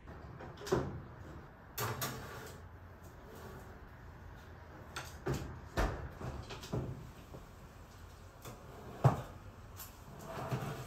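Metal baking tray and oven door being handled: the tray going into the oven, the oven door shutting, and the tray coming out again, heard as a handful of separate knocks and clacks, the sharpest about nine seconds in.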